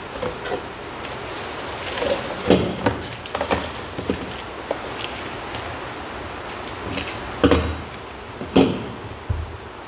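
Green bananas being peeled by hand: strips of stiff skin cracking and tearing off in irregular short clicks, with two louder knocks near the end.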